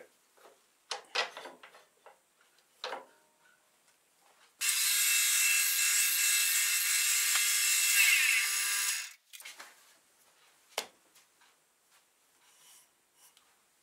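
A turning tool cutting decorative grooves into spinning wood on a lathe: a loud steady scraping hiss with one steady tone under it, lasting about four seconds and stopping sharply, with a few light knocks and clicks before it and one sharp click after.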